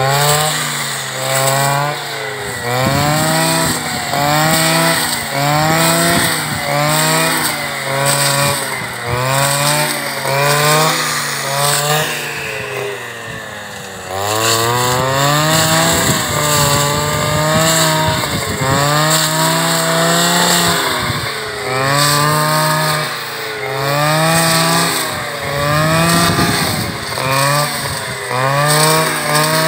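Petrol brush cutter revving up and down over and over, about every second and a half, as it is swung through grass and brush. About twelve seconds in it drops to idle for a couple of seconds, then revs up again.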